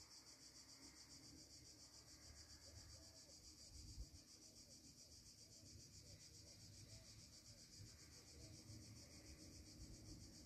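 Near silence: faint, steady chirring of insects in the background, with a soft knock about four seconds in.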